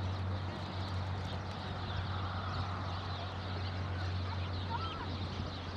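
Steady outdoor wind noise with a constant low rumble, and a few short bird calls, most clearly near the end.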